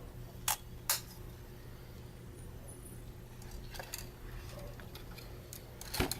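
Small hard clicks and taps of tools and parts being handled while a Canon EOS 60D camera body is taken apart. There are two sharp clicks about half a second and a second in, a few fainter ones midway, and a quick run of clicks near the end, over a steady low hum.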